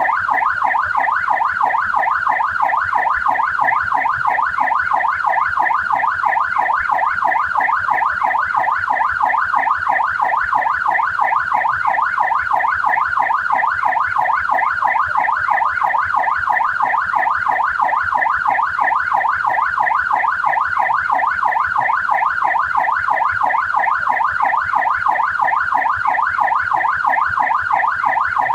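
Australian police car electronic siren in yelp mode: a loud, rapid rising-and-falling wail repeating several times a second, steady and unbroken.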